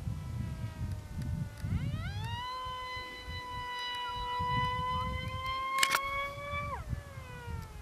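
Electric motor and propeller of a radio-controlled model plane in flight, whining steadily. About two seconds in the pitch climbs sharply as the throttle opens, holds high, then drops quickly near the end as the throttle comes back. Wind rumbles on the microphone throughout, with a brief crackle just before the drop.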